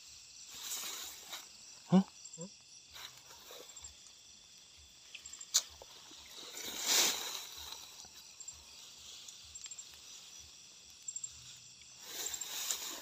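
Rustling of grass stalks and footsteps through tall grass at night, in three soft swells. Faint high insect chirps run underneath. Two short low pitched sounds come about two seconds in, and a sharp click comes near the middle.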